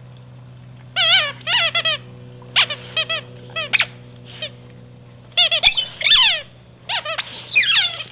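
Squeaky dog toy being chewed and squeezed by an English Bull Terrier, giving short, high, wavering squeaks in quick clusters of two to four, a cluster every second or so.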